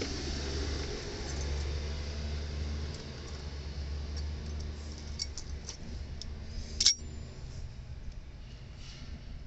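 Light metallic clicks and taps, with one sharp metallic clink about seven seconds in that rings briefly, over a low steady hum.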